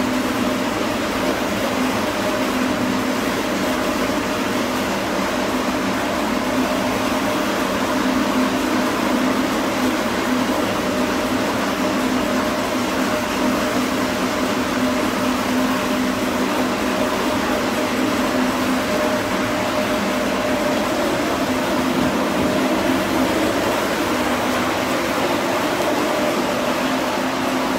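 Steady machine noise, a continuous rush with a low hum held throughout, like a running fan or blower.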